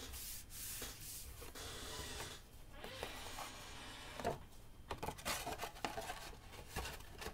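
Hands rubbing and pressing cardstock flat on a tabletop, then paper sliding and rustling as the sheets are picked up, with a few light knocks in the second half.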